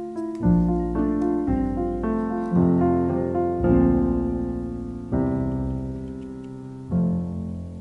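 Background piano music: chords and notes struck a second or so apart, each fading away.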